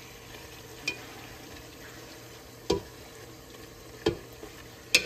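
Thick-cut bacon sizzling steadily in a nonstick stock pot as it is stirred and turned with a wooden spoon, the bacon rendering its own fat. The spoon knocks against the pot four times, the last knock near the end the loudest.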